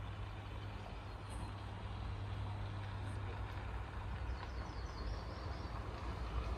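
Steady low hum of an idling engine, with a few faint bird chirps about four to five seconds in.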